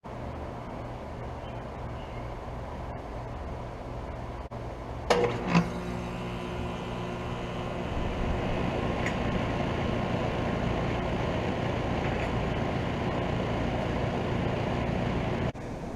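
2015 Trane XR14 2.5-ton central air-conditioner condenser unit starting up. It clacks on about five seconds in, then its compressor and outdoor fan come up to a steady, louder whir over the next few seconds, over a low hum that was already running.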